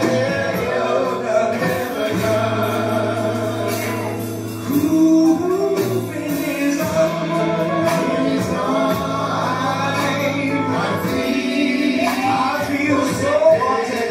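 Live gospel singing by a men's vocal group over held instrumental chords, the voices sliding and sustaining notes rather than singing clear words.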